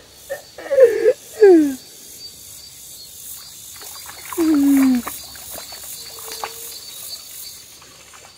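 Steady high chirring of insects, crickets, with a few short voiced sounds falling in pitch about a second in and again near the middle.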